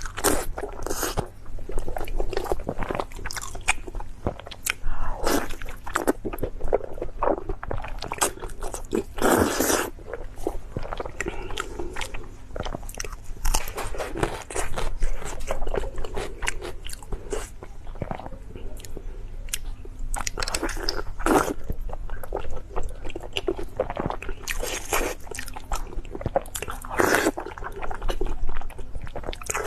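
Close-miked mukbang eating sounds: a person biting and chewing crunchy food, a dense, irregular run of crunches and crackles with louder bites every few seconds.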